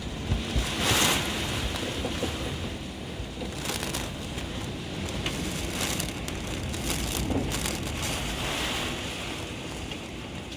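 Typhoon wind gusting and buffeting the microphone over a steady rushing noise, strongest in the first second or so.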